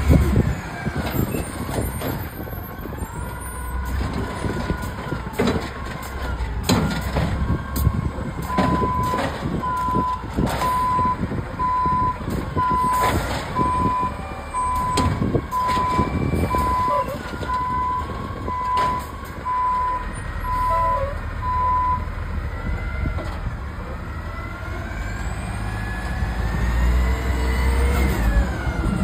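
Natural-gas side-loader garbage truck running, its engine rumbling under scattered metal clanks. A backup alarm beeps about once a second for some thirteen seconds starting about eight seconds in, and the engine picks up in a rising whine near the end, with loud bursts of noise at the start and the end.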